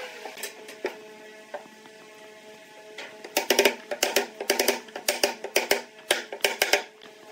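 Wooden mallet knocking a pine crosspiece down into a half-lap joint: a few light knocks of wood being set in place, then a quick irregular run of sharp knocks, about three a second, over background music.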